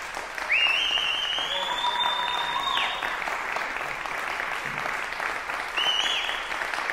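Concert audience applauding. About half a second in, a shrill whistle rises and holds for about two and a half seconds; a second, shorter whistle comes near the end.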